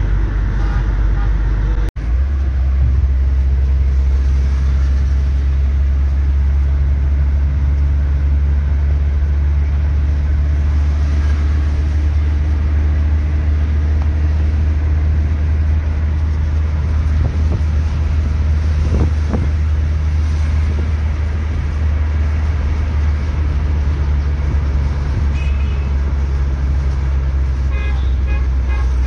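Steady low rumble of engine and road noise inside a moving car's cabin, breaking off for an instant about two seconds in. Several short horn toots near the end.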